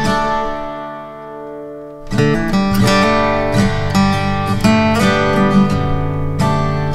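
Background music on acoustic guitar: a chord rings and fades over the first two seconds, then strummed and picked notes start up again.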